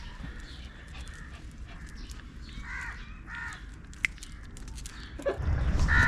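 A bird gives two short, harsh calls about halfway through, and another near the end. Around then a low rumble comes in and the level rises. Faint scattered clicks run underneath.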